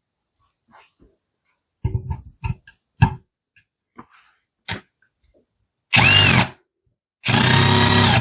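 Parkside Performance PABS 20-Li C2 brushless cordless drill driving a screw into wood with the torque clutch on setting 5. A few short knocks come first, then two runs of the motor: a half-second one with a whine that rises and falls, and a steady one just over a second long near the end.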